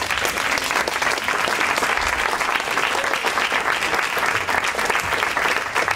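Audience applauding steadily, starting suddenly as the reader is welcomed to the stage.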